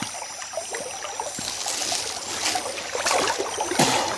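River water trickling, with several splashes as a speared bocachico thrashes at the surface on the spear shaft; the splashes come more often in the second half.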